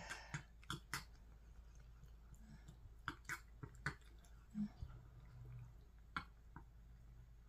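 Cat eating soft food: faint, scattered wet clicks and smacks of chewing and licking.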